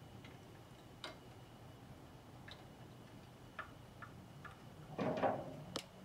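Small scattered clicks and ticks of wires and plastic connectors being handled. About five seconds in comes a louder short rattle, then a sharp click, as a hand tool is picked up.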